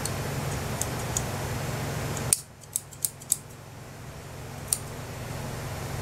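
Scissors snipping fabric or thread in a few sharp clicks: a quick run of four about two seconds in and one more near the end, over a steady low hum that drops away at the first snip and slowly comes back.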